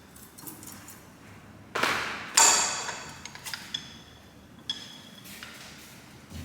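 Metal parts striking and clinking together: several sharp hits with a ringing tail, the loudest about two and a half seconds in, followed by a few lighter clinks.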